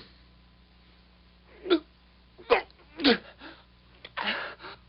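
A man's short grunts and gasps of exertion, isolated with no other sound: three quick pitched grunts followed by harder breathing near the end.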